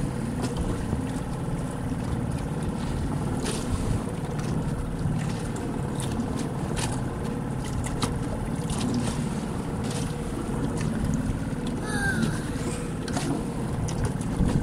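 Small boat's outboard motor running steadily under way, with wind buffeting the microphone and water splashing against the hull.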